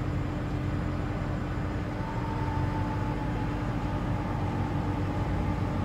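Steady low mechanical hum with a constant faint tone, joined by a fainter, higher steady whine about two seconds in.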